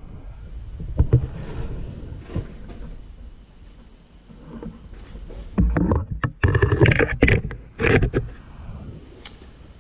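Handling noise from a small camera being picked up, moved over an engine block and set back down: a low rumble with rubbing and irregular knocks, and a run of louder knocks and scrapes between about six and eight seconds in.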